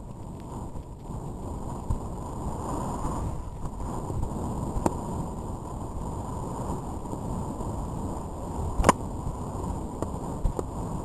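Wind buffeting a helmet-camera microphone as the horse moves fast: a steady low rushing, with two sharp clicks about five and nine seconds in.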